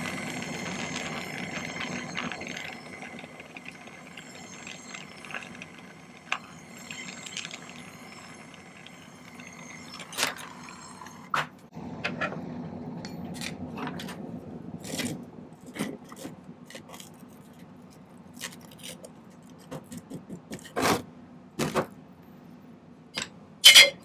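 Small soldering torch hissing against a sterling silver ring on a magnesia block for the first several seconds, then falling away. After that, scattered clicks, clinks and knocks of tools and the block being handled on the bench, the loudest just before the end.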